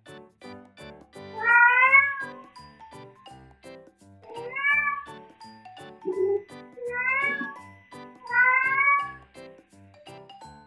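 Domestic cat meowing repeatedly, four drawn-out calls of about a second each, calling for another cat. Light background music with short plucked notes runs underneath.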